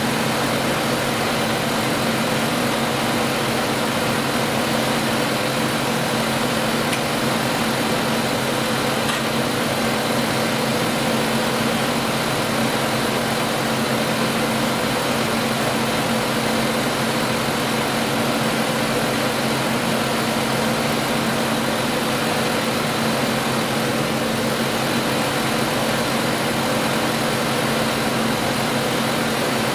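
2008 Ford Focus's 2.0-litre engine idling steadily, a constant hum with no change in speed.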